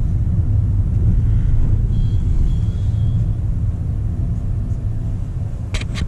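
Steady low rumble of road and tyre noise inside the cabin of a Honda City e:HEV hybrid sedan driving slowly. A brief rustle or knock sounds just before the end.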